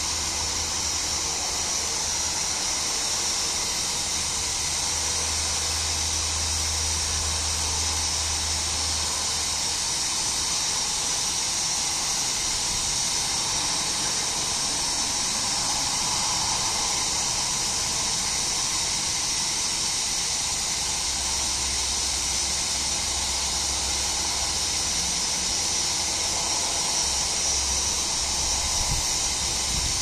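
Cicada chorus: a steady, high-pitched, unbroken buzz.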